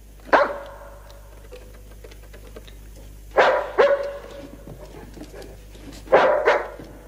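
German Shepherd barking: a single bark, then a pair of barks about three seconds later, then another pair near the end.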